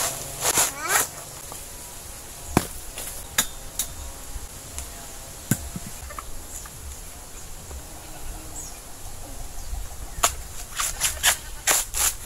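Sharp knocks of whole coconuts being set down and dropped against other coconuts on a heap: a few single knocks, then a quick run of them near the end. A fowl calls briefly near the start.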